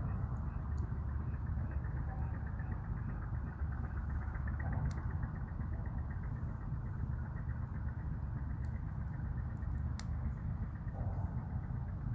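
Small wood fire burning in a UCO camp stove: a steady low rumble with a few sharp crackles, the loudest about ten seconds in.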